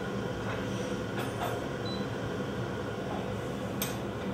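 Steady low hum with one short, high beep about two seconds in from an electric cooktop's touch controls as a burner is switched on. A light click near the end.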